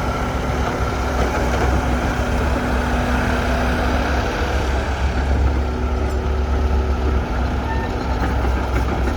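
Hydraulic excavator's diesel engine running steadily under working load, a heavy continuous rumble with a faint steady whine over it.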